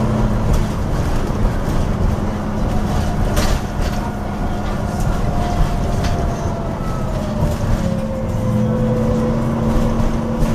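Interior of a Dublin Bus GT-class bus under way: the engine and drivetrain make a steady low hum, and a thin whine sinks slowly in pitch through the middle. A few sharp rattles come from the cabin fittings, the clearest about three and a half seconds in.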